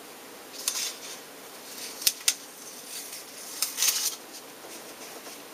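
Paper rustling and crackling as a paper mask is peeled off a stamped card front, in a few short bursts with two sharp ticks about two seconds in.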